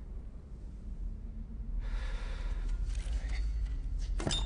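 Low steady rumble of a tense film soundtrack, with a faint hiss building from about two seconds in and a short, sharp sound near the end.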